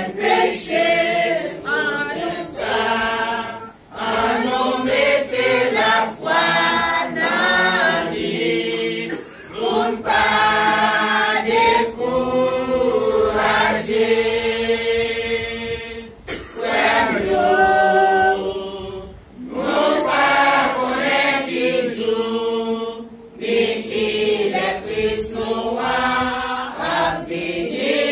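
A congregation of men, women and children singing a hymn together, unaccompanied, in long phrases with short breaks between the lines.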